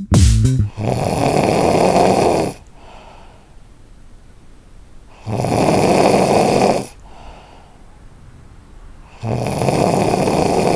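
A person snoring: three long, loud snores about four seconds apart, with quieter breaths between them.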